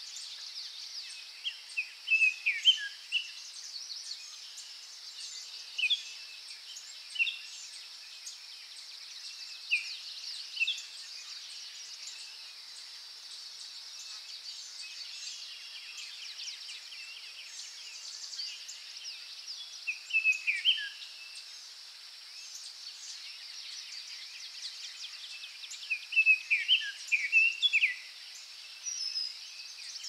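Forest ambience: a steady high-pitched insect drone under songbirds calling in short runs of falling chirps. The busiest bursts come a couple of seconds in, about twenty seconds in, and near the end.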